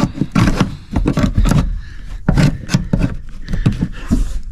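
Irregular knocks, clicks and scrapes of handling and moving about at a car's rear seat, with the camera being moved.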